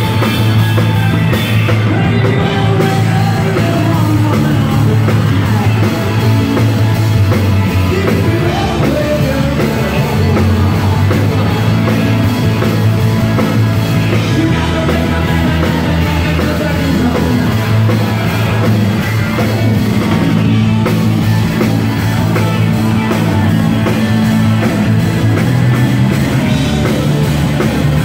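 Live blues-rock band playing loud, with electric guitar, electric bass and drum kit together.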